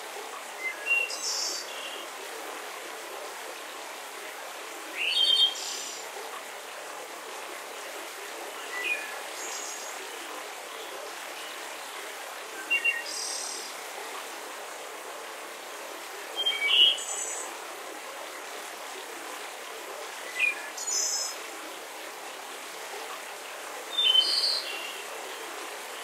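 Songbird singing short high chirping phrases about every four seconds, seven in all, over the steady rush of a forest waterfall.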